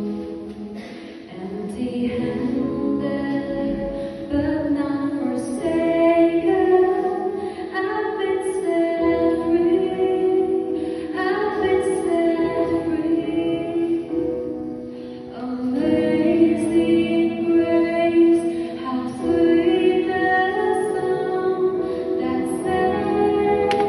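A woman singing a song solo into a microphone, in phrases of long held notes, with short breaks between phrases about a second in and again about fifteen seconds in.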